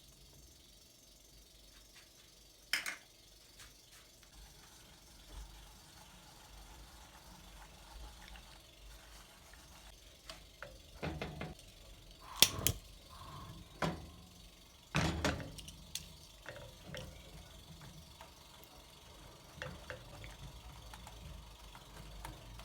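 Scattered kitchen handling sounds: a few sharp clicks and knocks of utensils and containers, with softer rustling and scraping between them.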